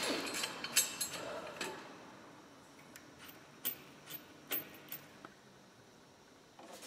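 Light metallic clicks and clinks of hand-tool and crash-bar hardware: a quick cluster of knocks in the first two seconds, then single sharp clicks about every half second in the middle as an adjustable wrench is fitted onto the nut of the threaded rod through the engine.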